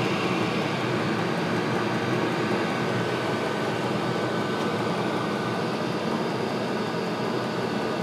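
Diesel air heater running steadily, an even whirring hum from its fan and burner with a faint high whine over it.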